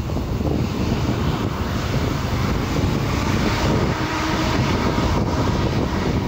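Boeing 787-8 Dreamliner's turbofan engines running at taxi power as the jet rolls past, a steady noise with a faint whine.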